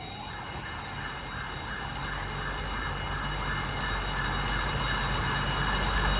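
Fire engine siren wailing as the truck approaches, growing steadily louder, with a low engine rumble building about halfway through.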